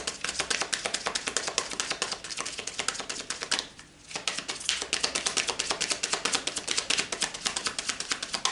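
A small deck of oracle cards being shuffled in the hands: a fast run of crisp card-edge clicks, with a short break a little under halfway through.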